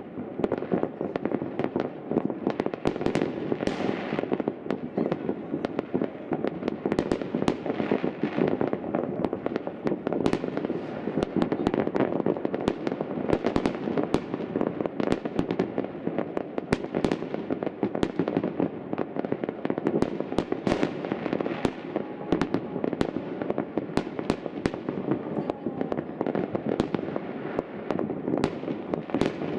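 Many fireworks going off at once: a dense, unbroken run of overlapping bangs and crackling from aerial shells and firecrackers.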